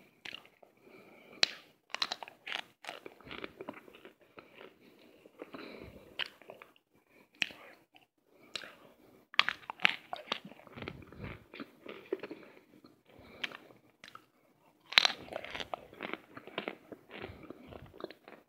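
Chunks of cornstarch crunching in a long run of irregular, crisp crackles, loudest about a second and a half in, around nine seconds in and around fifteen seconds in.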